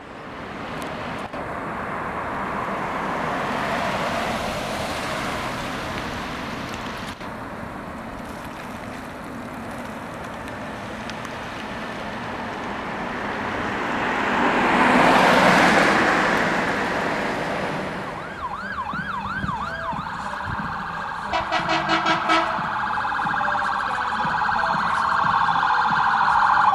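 Road traffic noise rises and falls, with a vehicle passing close about halfway through, the loudest moment. In the last third the 2013 Pierce Velocity fire engine's siren sounds as it approaches: quick yelping sweeps, a brief rapid pulsing, then a steady high wail.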